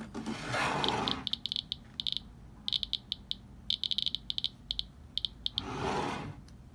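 Radiation Alert Ranger Geiger counter's clicker sounding, with short high clicks coming at random in bunches of several a second; each click is one detected radiation count. Two soft rushes of hiss, one about half a second in and one near the end.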